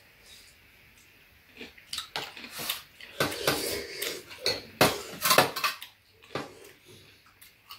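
Chopsticks and spoons clicking and scraping against bowls of stew and rice during a meal, a quick flurry of clicks that is busiest in the middle.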